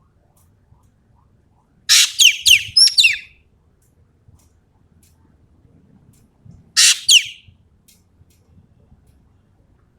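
Common green magpie (ekek keling) giving loud, sharp calls, each a quick falling note. There is a bout of about four calls around two seconds in and two more near seven seconds.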